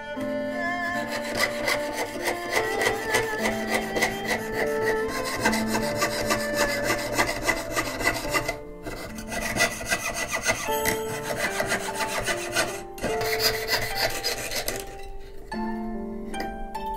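Jeweler's piercing saw cutting through thin brass plate in rapid, rasping back-and-forth strokes, breaking off briefly twice. A soft plucked-string melody plays underneath.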